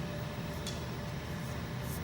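Steady low mechanical hum with a faint steady tone above it, and two light clicks, one under a second in and one near the end.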